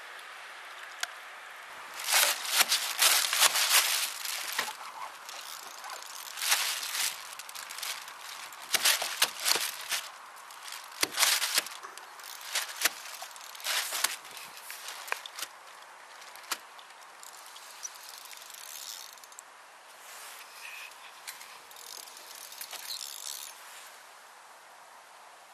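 Spinning fishing reel being cranked in short spurts, a rattling clicking that is strongest in the first half and fainter and more scattered later.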